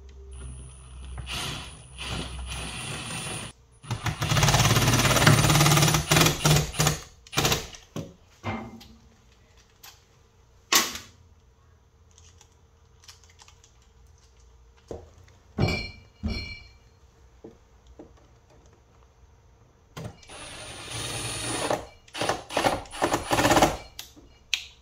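Milwaukee Fuel cordless driver running screws home into toggle bolts to fix a shelf to the wall. There is a shorter, quieter run at the start, a loud run of a few seconds, then tool handling clicks, and a second loud run near the end.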